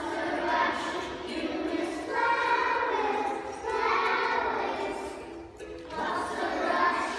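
A group of young children singing a song together as a choir, in phrases with short pauses for breath about two seconds in and again near the end.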